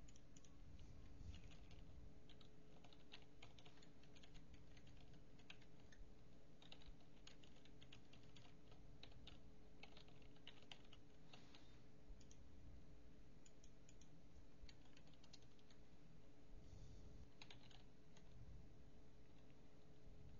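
Faint typing on a computer keyboard: irregular runs of key clicks, dense for most of the first twelve seconds, then sparse with a few more near the end. A faint steady hum lies underneath.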